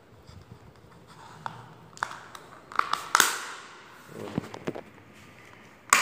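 Black plastic fan grille and its center trim piece handled and pressed together by hand: plastic scraping and rattling with a run of sharp clicks, the loudest about halfway through, and a sharp snap near the end as the piece is pushed into place.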